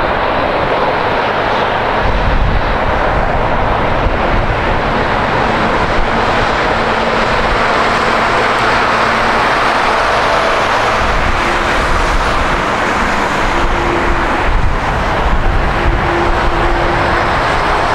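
Boeing 787 airliner's twin GEnx turbofan engines giving a steady loud roar and rumble as the jet rolls along the runway, the low rumble swelling a few times.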